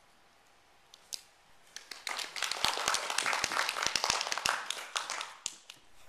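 Small audience applauding. A few scattered claps about a second in swell into full applause for about three seconds, then taper off near the end.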